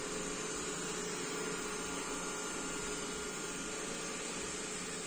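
Steady hum and hiss of a running appliance, with a few constant tones under a level, unbroken noise.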